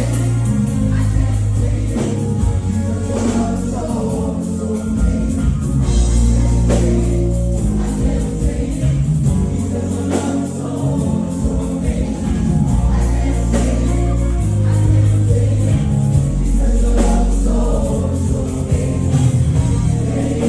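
Gospel music with a choir singing over bass and drums, playing steadily.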